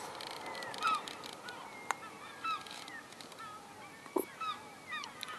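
Many large gulls calling at once: short, overlapping calls that bend up and down in pitch, coming from several birds all through.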